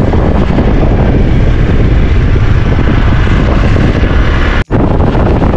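Strong wind buffeting the microphone: a loud, steady, rumbling roar. It is broken by a split-second dropout near the end.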